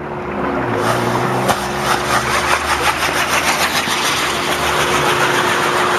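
Fireworks on a frame carried by a person burning and spraying sparks: a loud, steady fizzing rush with rapid fine crackling.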